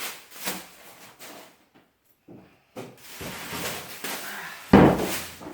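Handling noises from unpacking a benchtop planer: scattered knocks, scrapes and rustles of packaging and parts, with one loud thump about three-quarters of the way through.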